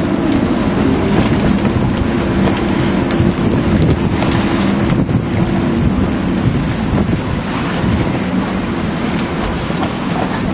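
Gale-force wind buffeting the microphone over choppy water, with a boat engine running steadily underneath; the engine hum weakens after about six seconds and comes back near the end.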